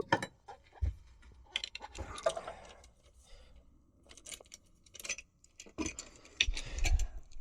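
Irregular small metallic clicks, rattles and light knocks from a uPVC door lock's multipoint gearbox being handled and worked with a T-bar, with a few dull thuds near the end.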